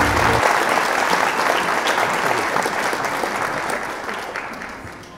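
Applause from a crowd, many hands clapping, dying away over the last couple of seconds. A music bed under it stops about half a second in.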